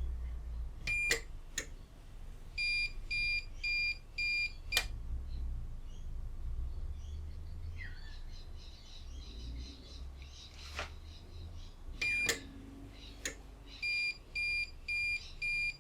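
UPS alarm buzzer beeping in a repeating pattern: one beep, then four short beeps about half a second apart, the group coming twice. Sharp relay clicks fall between the beeps, over a low steady hum. The unit is just powered up on its newly fitted battery, which is still low on charge.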